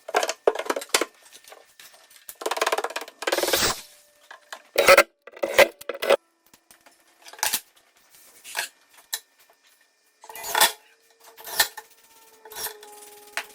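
Irregular knocks, clicks and clattering of wooden kitchen cabinet doors and drawers being worked, with a longer sliding scrape at about three seconds.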